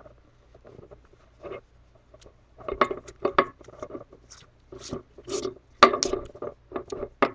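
A metal screw-link clinking and rattling as rope is handled and pulled through it: scattered light clicks, getting busier about two and a half seconds in.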